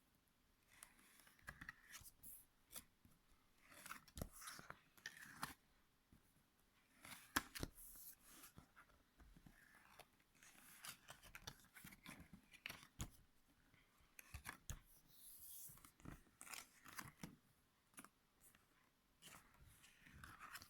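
Faint rustling, scraping and scattered small clicks of hands handling a cardboard picture book, its pages and movable parts, in a quiet small room.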